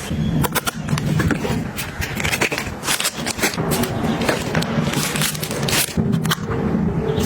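Hands handling snack and tissue packaging during restocking: a dense run of crinkles, scrapes and sharp clicks as items are moved and set down.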